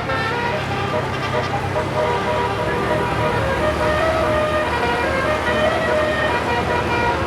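Bus's 36-note telolet basuri musical air horn playing a tune in a run of held notes, one after another, over the steady hum of the bus engine running.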